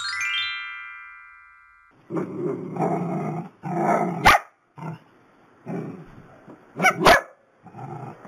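A quick rising run of chiming notes that rings out and fades over about two seconds. Then dachshunds bark and growl in repeated bursts, with two sharp clicks in the middle and near the end.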